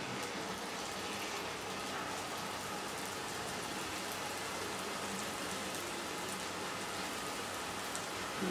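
Jalebi batter frying in a pan of medium-hot desi ghee: a steady sizzle of bubbling fat.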